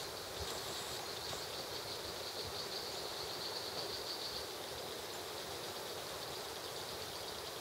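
Steady high-pitched insect chorus over an even outdoor hiss.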